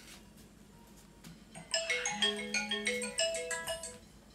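A phone ringtone: a short electronic melody of quick notes at changing pitches, starting a little before halfway and lasting about two seconds.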